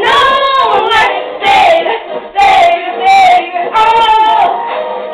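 Young girls' voices singing and shouting along, loud and high-pitched, in short phrases with brief breaks between them.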